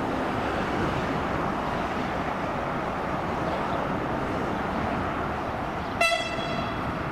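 Fertagus class 3500 double-deck electric multiple unit approaching slowly with a steady running noise of wheels and traction, then a single short, high horn toot about six seconds in.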